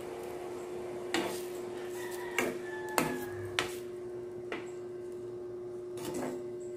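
A metal cooking utensil knocking and scraping against a pan as it turns milkfish pieces in coconut milk: about seven separate short clinks at uneven intervals.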